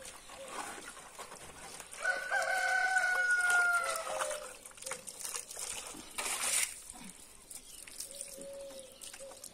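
A rooster crows once, one long call of about two seconds that falls slightly in pitch near the end, a couple of seconds in. Underneath, a garden hose runs water into a plastic dish, with a short splash about six seconds in.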